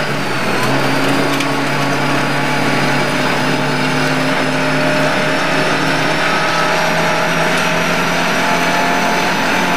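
Lada 1200's 1.2-litre four-cylinder engine running at high revs under load, heard inside the rally car's cabin, its pitch held steady and creeping slightly higher. Under it runs a dense crunching noise from the tyres on the snow-covered road.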